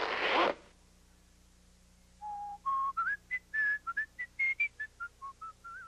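A short rushing noise that ends about half a second in, then, from about two seconds in, a cartoon character whistling a tune of quick single notes that hop and glide up and down in pitch.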